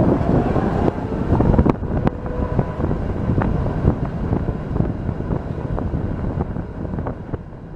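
Tram in motion, heard from aboard: a steady rumble of wheels on rail, with scattered sharp clicks and wind on the microphone, slowly getting quieter toward the end.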